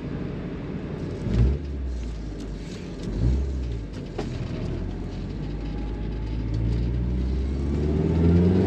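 Supercharged Toyota 3RZ 2.7-litre four-cylinder engine running with a low rumble as the truck drives, with two brief low thumps about one and three seconds in. Near the end the engine pitch starts to rise as it accelerates.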